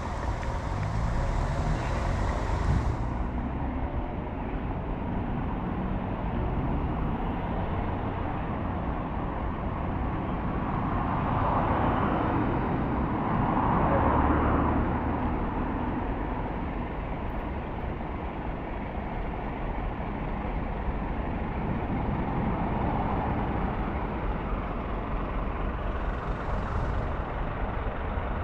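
Road traffic: vehicles running and passing by, with a swell of passing vehicle noise about halfway through.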